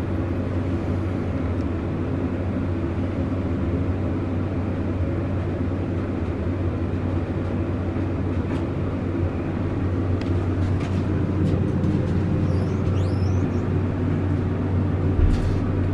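Dover hydraulic elevator car travelling up between floors, a steady low hum from the pump and moving car. There is a low thump near the end.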